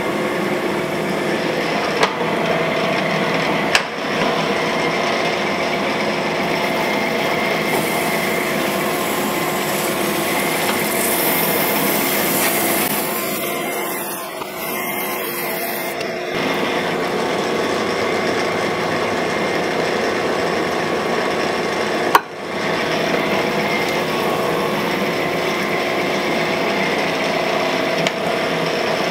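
Cam grinder's abrasive wheel grinding a lobe of an FE Ford solid roller camshaft under flowing coolant: a steady grinding hiss over the machine's hum. The hiss grows brighter in the middle. A few sharp clicks come through, the loudest about two-thirds of the way in. These are the last passes, with about three thousandths left to remove.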